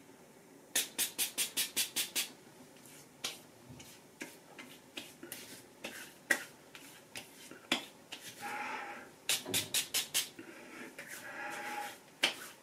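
Hands patting and slapping aftershave onto freshly shaved skin of the face and neck: a quick run of about eight slaps about a second in, a few scattered ones, then another quick run in the second half. There are two longer breathy sounds between the slaps.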